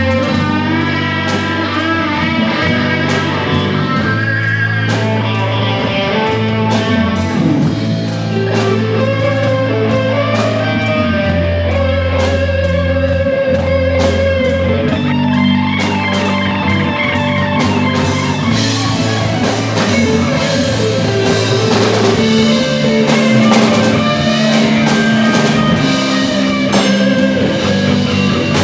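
Rock band playing: an electric guitar carries a bluesy melody over a steady bass line, and the drum kit grows busier through the second half.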